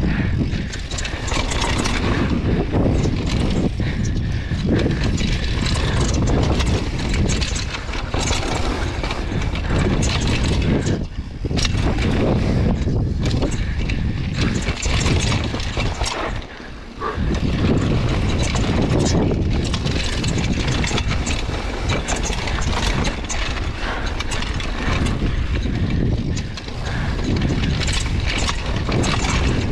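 Mountain bike riding fast down a dirt trail: knobby tyres rolling and skidding over dirt, with the frame, chain and suspension rattling. A few brief lulls break the noise, the longest about halfway through.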